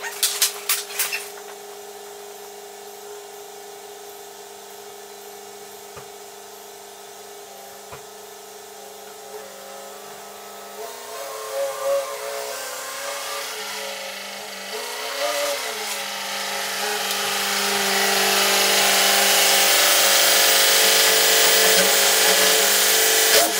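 Ford Super Duty pickup engine running with a steady hum, its pitch shifting briefly partway through. Over the last several seconds it grows steadily louder into a loud rushing sound as the truck pulls up to the lift. A cart rattles briefly at the start.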